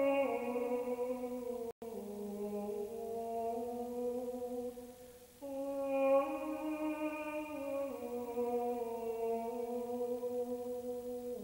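Slow vocal chant of long held notes that step up and down in pitch. The sound cuts out for an instant about two seconds in.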